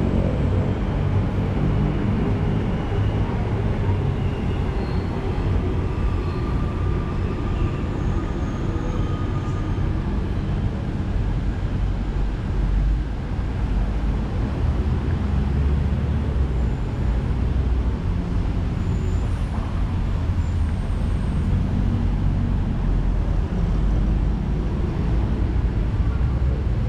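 Steady rumble of city traffic.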